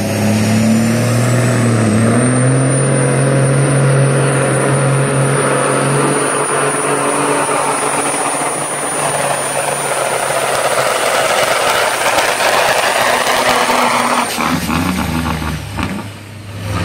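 1975 Dodge Bighorn semi truck's diesel engine at full power pulling a weight-transfer sled, loud and steady, with a high whine that rises and then holds one pitch over the engine. Near the end the whine stops and the engine drops to a lower note as the pull ends.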